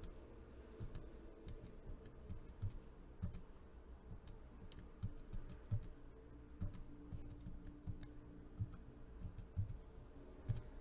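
Faint clicks of a scientific calculator's keys being pressed one after another at an irregular pace, roughly two a second, as a sum of decimal numbers is keyed in.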